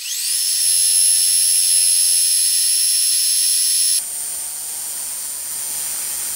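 Metal lathe spinning up with a rising high whine, then running steadily while a carbide insert tool faces the end of a thick stainless steel disc. The sound shifts abruptly about four seconds in, as the cut throws off chips.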